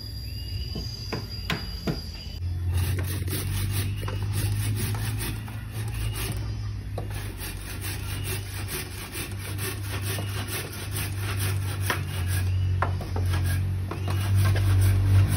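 Bamboo being rubbed and scraped by hand: a dense run of rough scraping strokes starting a couple of seconds in, over a steady low rumble.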